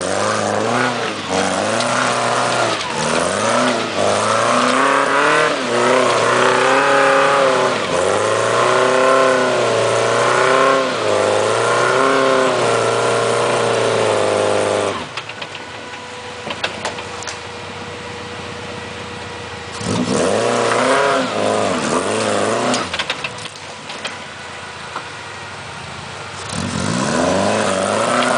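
Off-road 4x4's engine revving hard in repeated surges, its pitch climbing and falling for about fifteen seconds. It then drops back to a lower, steadier running, revs up again briefly around twenty seconds in, and picks up again near the end.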